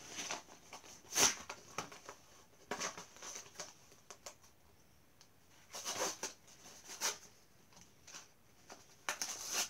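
Plastic packaging crinkling and crackling in the hands as a Hot Wheels die-cast car is unwrapped, in irregular spells with quiet gaps, the sharpest crack about a second in and another cluster near the end.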